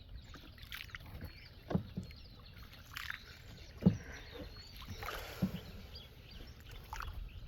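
Small wooden boat moving on flood water: a few separate splashes and knocks of paddle or pole against water and hull, a second or two apart, the loudest about four seconds in.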